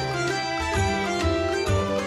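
Instrumental background music: a melody of sustained notes over a low bass note that comes back every half second or so.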